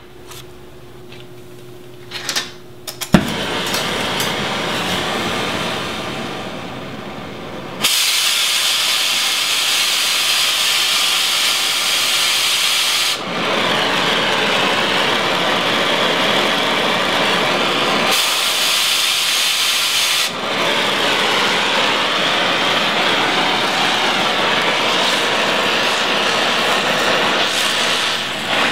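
Oxy-fuel cutting torch hissing steadily while it heats and cuts steel plate, louder in several long stretches. A few light clinks and one sharp pop come in the first three seconds, before the hiss starts.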